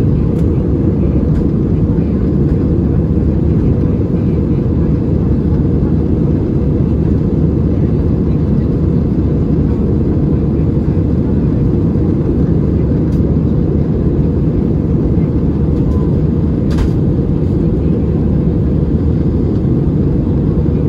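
Steady, low cabin roar of an Airbus A320-216 in flight: its CFM56 turbofans and the airflow over the fuselage, heard from inside the cabin behind the wing. A single faint click sounds about 17 seconds in.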